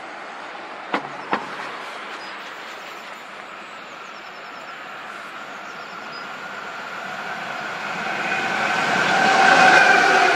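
A train approaching along the line, growing steadily louder over the last few seconds, with several steady high tones sounding over the rolling noise as it nears. Two sharp clicks about a second in.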